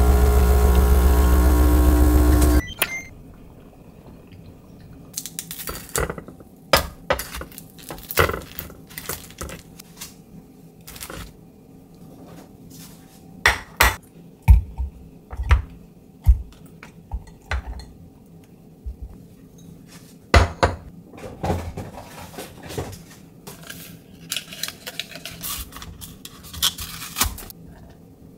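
Espresso machine's pump running as a shot pulls, cutting off abruptly a couple of seconds in. Then scattered clinks and knocks of dishes and glassware being set down and handled, with milk pouring into a glass near the end.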